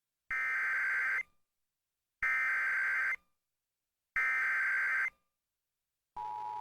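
Emergency Alert System SAME header: three one-second bursts of digital data warble, about a second of silence apart, encoding the start of a severe thunderstorm warning. Near the end, the steady two-tone EAS attention signal begins.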